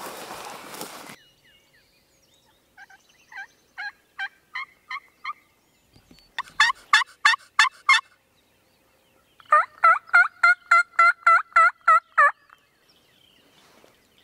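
Turkey friction pot call scraped with a wooden striker, giving three runs of hen yelps: a soft run of about seven, then two loud runs of about eight and about a dozen quick, two-toned yelps. Footsteps rustle through grass in the first second.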